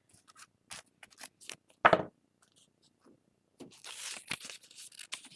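Crafting sounds on a tabletop: light taps and handling, one firm thump about two seconds in as a rubber stamp is pressed down onto paper, then soft paper rustling and crinkling near the end.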